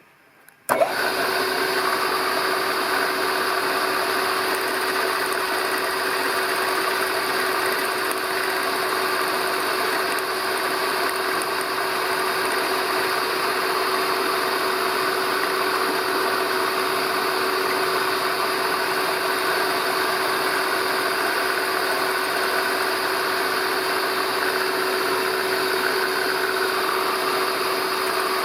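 A workshop machine's electric motor starts abruptly about a second in and runs steadily with a constant hum.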